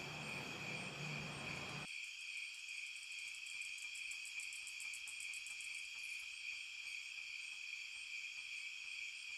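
Quiet night-time chorus of crickets: a steady high-pitched trill, with a faster pulsed chirping over it from about three to six seconds in. A low background hiss cuts out suddenly about two seconds in.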